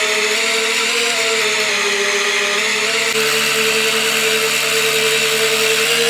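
Small electric motor of a homemade mini lathe running at a steady speed, giving a steady whine with a hiss over it.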